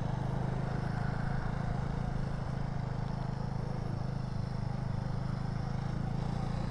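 Small 390 motorcycle's single-cylinder engine running steadily at low speed as the bike rolls off from a stop, with no sharp revving.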